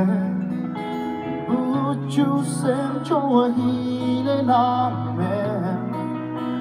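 Live band music: acoustic and electric guitars playing over sustained low notes that change every couple of seconds, with a wavering, bending melody line on top.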